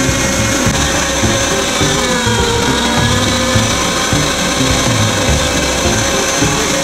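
Unold 8810 electric meat grinder's motor running steadily while peeled onion is pushed through the auger and cutting plate, its pitch sagging briefly about two and a half seconds in.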